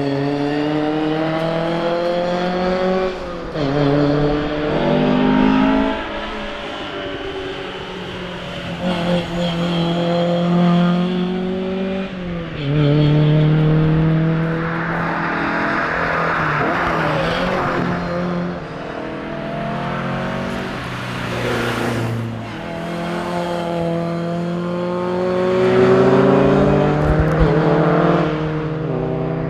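Ford Cortina rally car's engine being driven hard: it revs up through the gears, and the pitch drops back at each upshift several times. There is a burst of tyre noise around the middle.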